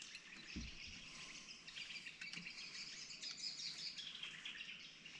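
Faint bird calls and chirps scattered through quiet outdoor ambience, with one soft low thump about half a second in.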